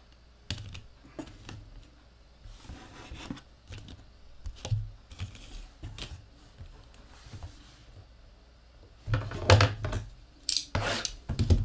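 Trading cards in rigid plastic top loaders being handled and set down on a tabletop: scattered light clicks and taps with soft rustling, and a louder burst of clattering and rustling about nine seconds in.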